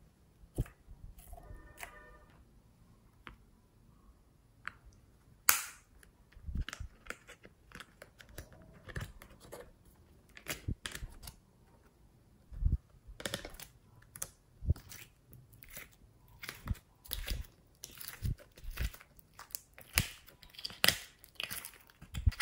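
Hands handling slime and plastic containers: irregular clicks, crackles and squishing, with one sharp click about five and a half seconds in.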